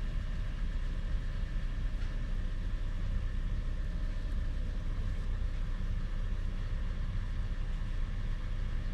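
A steady low rumble that does not change in level, with a faint constant hum above it.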